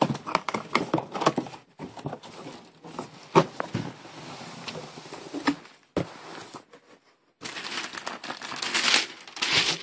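Boot box being opened and its packing wrap handled: scattered clicks and knocks, then a louder stretch of steady crinkling and rustling from about seven and a half seconds in.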